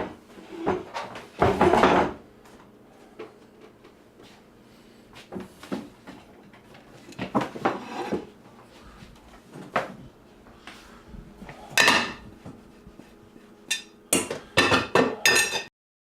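Cutlery clinking and scraping on plates and dishes during a meal, in scattered short clatters with a few louder knocks near the start, about twelve seconds in and in a quick cluster near the end; the sound cuts off suddenly just before the end.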